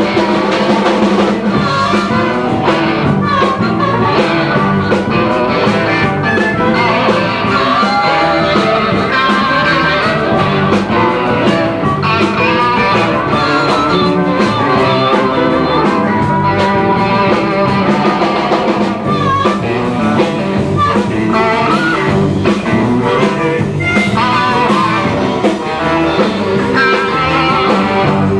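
Live blues-rock band playing, with electric guitar lines over bass and drums.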